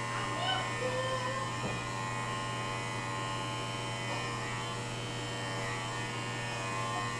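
Electric hair clippers buzzing steadily as a man's head is being shaved.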